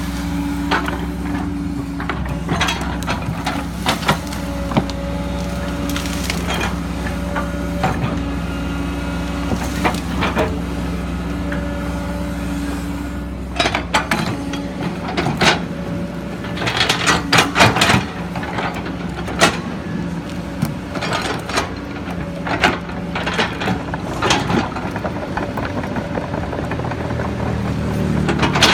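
Kobelco SK140 hydraulic excavator's diesel engine running steadily, with frequent sharp knocks and cracks of the machine at work, thickest about halfway through.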